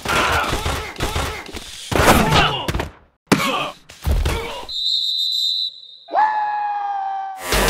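On-field sounds of an American football play with no crowd: players shouting and grunting, with thuds of contact, then a referee's whistle blown for about a second nearly five seconds in, blowing the play dead after the touchdown catch. Near the end comes a long held shout.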